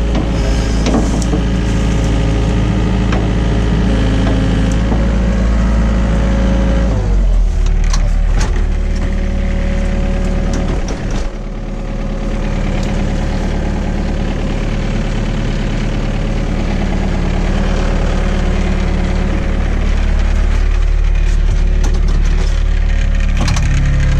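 Hyundai excavator's diesel engine running steadily while digging. Its note drops about seven seconds in, and a few sharp knocks come shortly after.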